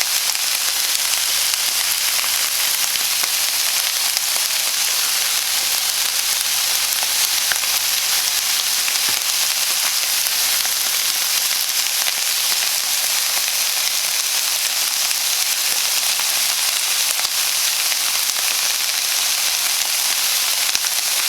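Chicken breasts sizzling steadily in a hot frying pan of garlic butter, a constant crackling hiss.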